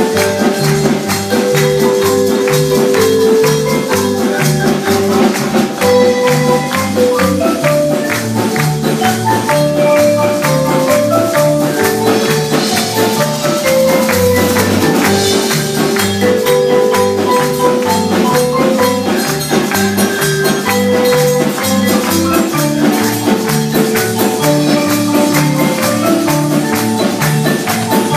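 Marimba music: quick runs of mallet notes over a repeating bass pattern, with a steady beat.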